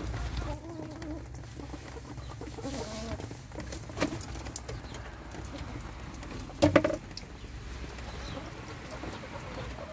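Domestic hens softly clucking, with one louder, brief call about two-thirds of the way through.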